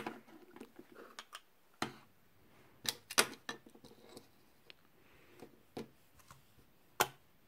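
Small stationery items being picked up and set down on a wooden desk: scattered clicks and light knocks, the sharpest a little after three seconds in and another near the end.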